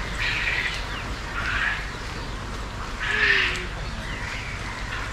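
Farm poultry calling: three harsh, noisy squawks about a second and a half apart, the loudest about three seconds in.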